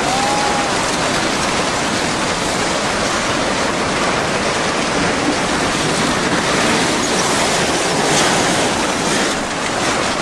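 Tsunami floodwater rushing through a town, a loud steady roar of churning water carrying debris and wrecked houses.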